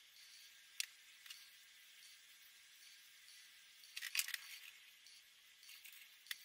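Felt-tip marker pens handled: a few sharp plastic clicks, with a cluster of them about four seconds in as one marker is capped and another uncapped, over a faint steady hiss.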